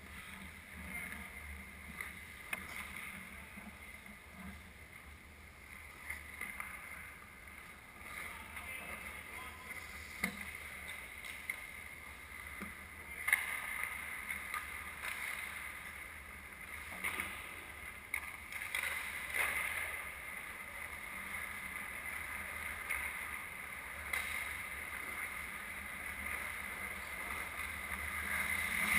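Ice hockey played on an indoor rink: skates scraping across the ice with scattered sharp clacks of sticks and puck, over a steady high hum.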